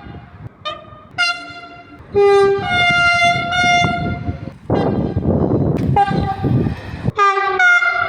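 Train horns sounding one after another: two short toots, then a long blast of about two seconds, then more blasts near the end, with the pitch changing between them as different horns follow. Around five seconds in, the rumble of a running train fills the gap between the horns.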